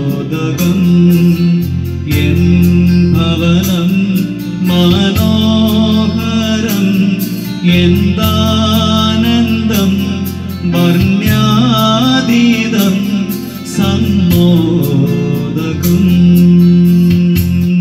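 A man singing a Malayalam Christian funeral song into a microphone, accompanied by an electronic keyboard playing bass, chords and a steady rhythm track.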